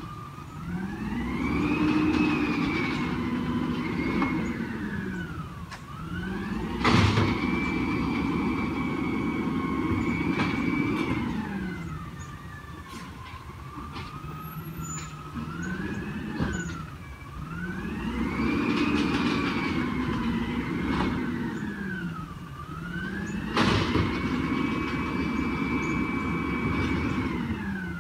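Peterbilt 320 garbage truck's diesel engine repeatedly revving up, holding high revs for a few seconds and dropping back to idle, about five times, with a hydraulic pump whine rising and falling with it. This is the throttle advance driving the Amrep automated arm and packer as it collects carts. Sharp bangs about seven seconds in and near the end, typical of a cart being shaken out into the hopper.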